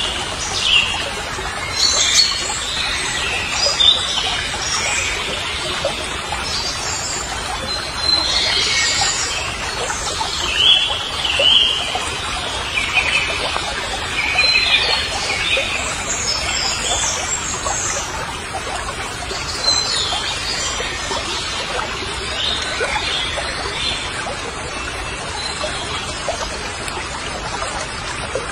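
Songbirds singing and chirping in repeated short phrases over a steady background hiss.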